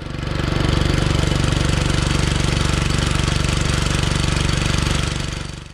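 Engine of a jukung outrigger fishing boat running steadily under way, a fast even pulsing with a hiss of wind and water over it; it fades in at the start and fades out near the end.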